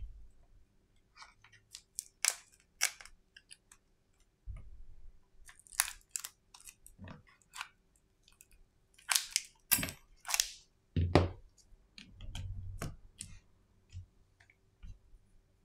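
Hands working on a dismantled Samsung Galaxy S10: irregular sharp clicks, taps and scrapes of the phone's frame and small parts, with a few duller thumps and rubbing against the silicone repair mat.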